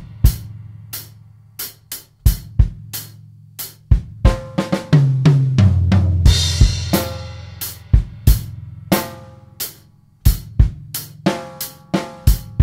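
Acoustic drum kit played in time over a backing track's steady bass line: snare, bass drum and hi-hat strokes, a short fill about four seconds in, and a crash cymbal about six seconds in.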